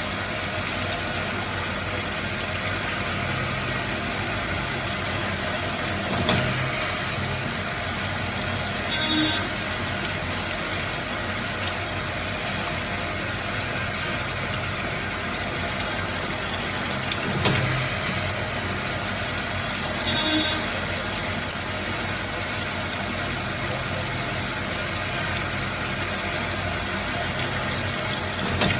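Cam-type automatic lathe running continuously: a steady machine noise, with brief louder sounds that come round about every eleven seconds as the cycle repeats.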